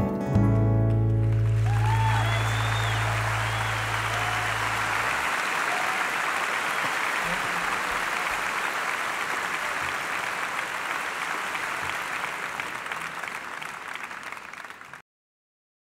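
A song ends on a held low note that dies away over the first few seconds while audience applause rises and carries on steadily, easing a little before it cuts off abruptly near the end.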